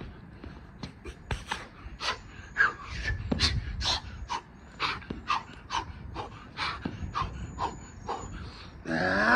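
A man panting hard during a burpee workout, with quick sharp breaths about twice a second and a low thud about three seconds in. Near the end comes a loud, strained vocal groan.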